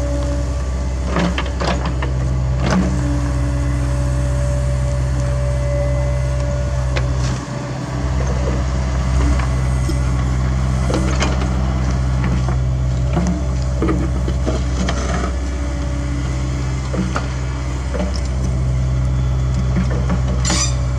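CAT 305.5E2 mini excavator at work in loose soil: its engine runs with a steady hum, dipping briefly about a third of the way in, under scattered knocks and scrapes from the bucket, with a louder clank near the end.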